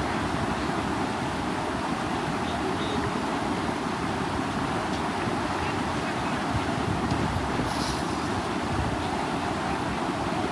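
Steady rushing noise of floodwater pouring through a sluice gate, even and unbroken, with faint voices in the background.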